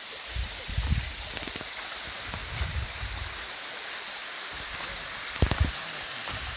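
Waterfall water falling and splashing into its pool, a steady rushing hiss, with a few low thuds and one sharp knock about five and a half seconds in.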